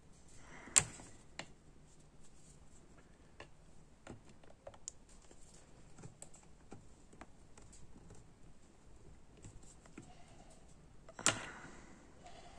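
Small metallic clicks and scrapes of needle-nose pliers prying at the wrist-pin circlip in a chainsaw piston. There are two sharper clicks, one about a second in and one near the end.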